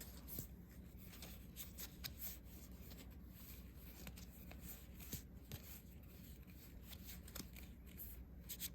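Faint rustling and light clicks of Pokémon trading cards being slid and flipped through by hand, over a low steady hum.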